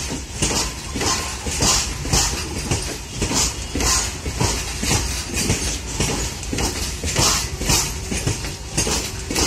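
Steel wheels of a long train of loaded open freight wagons rolling past close by, knocking over rail joints in a clickety-clack rhythm of about two beats a second over a low rumble.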